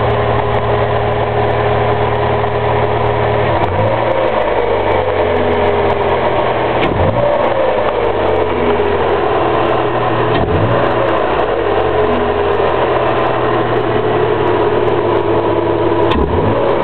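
Ford Fiesta Zetec Rocam four-cylinder engine, breathing through a conical sport air filter, idling with a few short, light revs that rise and fall back.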